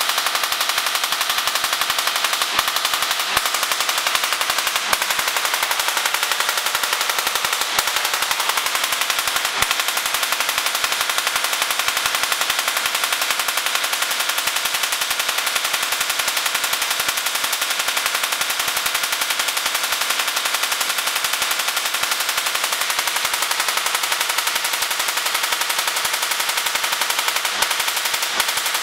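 Rotary spark gap Tesla coil of about 100 W running, its spark gap firing in a loud, dense, rapid crackling buzz without let-up.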